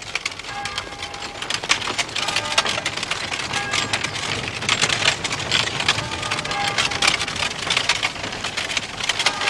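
Horse-drawn cart rattling along a lane: a continuous clatter of the wooden wheels and cart body, with hooves on the road.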